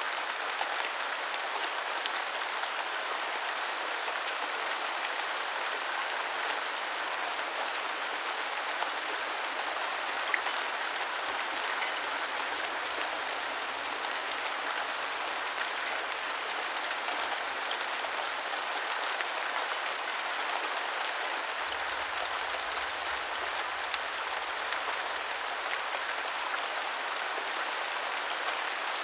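Steady rain falling, an even hiss of many drops with scattered faint ticks of individual drops landing.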